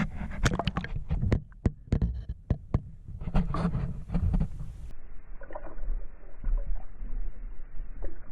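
Irregular knocks and clatter of gear being handled in a kayak, followed by a steadier low noise about five seconds in.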